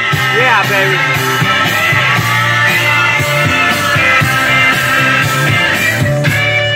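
Rock music with guitar and singing, playing loud and steady, with a sliding pitch glide about half a second in.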